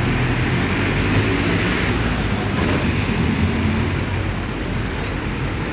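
A city bus's diesel engine running close by as it moves past, a steady low hum over general traffic noise.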